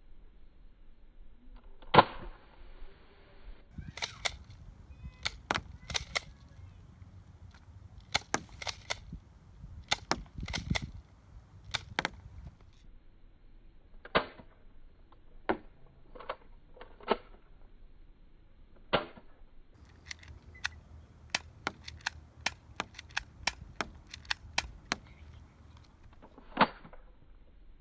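Airsoft guns firing: many sharp pops, some single and some in quick groups, the loudest about two seconds in.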